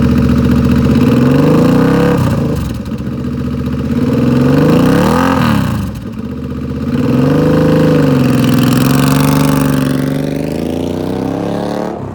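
2007 Suzuki Boulevard M50's 805cc liquid-cooled, fuel-injected V-twin running and being revved from idle. It rises and falls about three times: a short rev about 2 s in, a sharper one about 5 s in, and a longer one held from about 7 s before it drops back.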